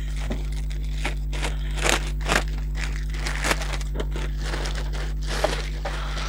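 Clear polythene bag crinkling and rustling as it is pulled off and crumpled by hand, in many short irregular crackles. A steady low hum runs underneath.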